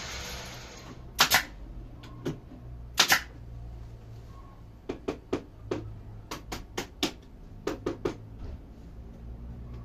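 Pneumatic brad nailer firing brads into a 15 mm melamine cabinet panel: sharp shots, a few spaced ones at first, then a quicker run of about a dozen. A steady hiss stops about a second in.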